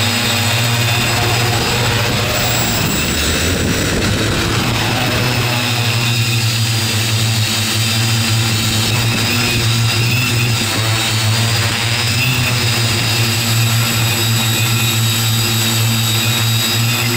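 Xaircraft X650 multirotor's electric motors and propellers running steadily, heard close up as a loud hum with a layered whine of several steady pitches.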